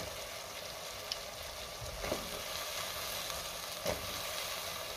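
Ghee and oil sizzling steadily in a pressure cooker around onion, tomato and soaked whole masoor lentils. A few short knocks come as raw potato cubes are dropped in, about two seconds in and again near four seconds.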